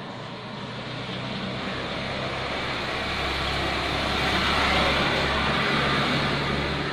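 A motor vehicle going by on a road: engine hum and rushing tyre noise swell to a peak about five seconds in and then ease off.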